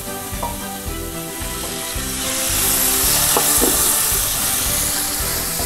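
Hot water poured into fried onion-tomato-chilli masala in an aluminium pan, the masala sizzling as a wooden spatula stirs it; the sizzle grows stronger about two seconds in.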